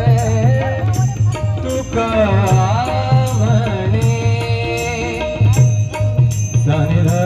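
Devotional aarti music: a gliding melody over a steady drum beat, with sharp metallic strikes about twice a second.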